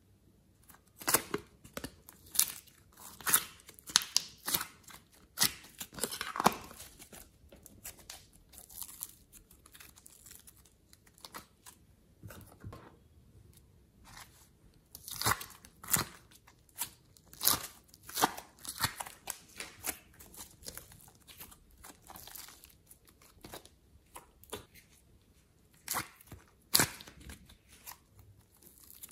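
Soft modelling clay being pulled apart and squeezed by hand, together with the crinkling of the thin plastic moulds it sits in: irregular sticky tearing and crackling noises, busiest near the start and again around the middle.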